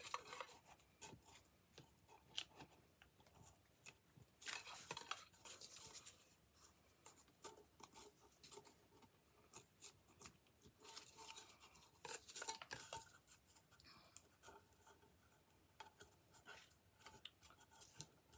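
Faint handling sounds of thick, stiff textured craft paper being curled and cut: scattered small clicks and soft rustles, a little louder twice.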